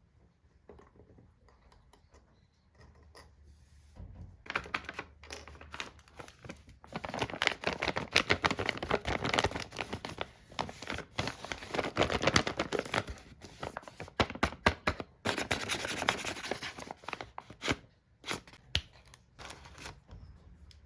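Packaging being torn open and crinkled by hand, a dense crackling that starts about four seconds in and thins to scattered crackles near the end.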